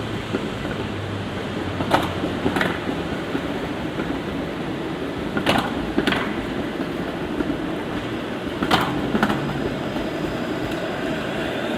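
Light rain with a steady city hum. Sharp taps come in three pairs, about three seconds apart.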